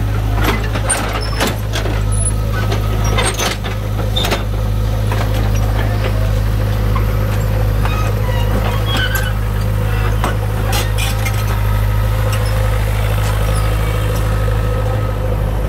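Kobelco SK50UR mini excavator's diesel engine running steadily as the machine crawls up steel loading ramps onto a truck bed. Its steel tracks clank and knock on the ramps over and over, most in the first few seconds and again around the middle.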